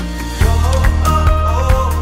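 Upbeat background music. About half a second in, a fuller, louder section comes in with a steady beat and a melody over the bass.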